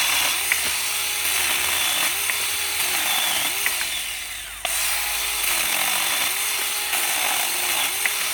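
Saker 6-inch 20 V cordless mini chainsaw running, its electric motor and chain cutting through yard brush. Its sound sags and then comes straight back up about four and a half seconds in.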